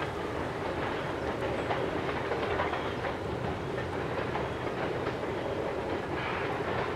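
Steam-hauled excursion train behind Southern Railway #154 rolling along the track, a steady noise from wheels on rails that keeps an even level throughout.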